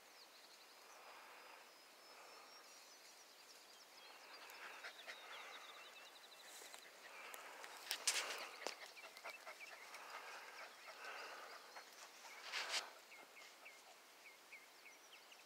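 Faint outdoor ambience of small birds calling, with a thin whistled glide and trill near the start and a run of short chirps near the end. A few louder rustles in the brush come about eight and thirteen seconds in.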